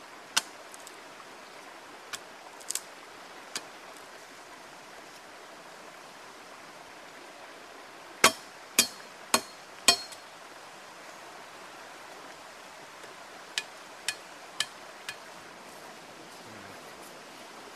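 Machete blade chopping into wood to shape a canoe paddle: a few scattered chops, then a run of four hard strikes about half a second apart a little after halfway, and four lighter ones at the same pace a few seconds later, over a steady background hiss.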